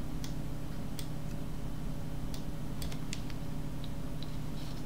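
About ten scattered, irregular clicks of a computer keyboard and mouse being worked, over a steady low hum.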